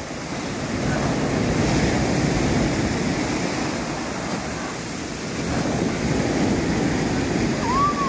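Ocean surf breaking and washing up a sandy shore, the wash swelling twice and easing in between.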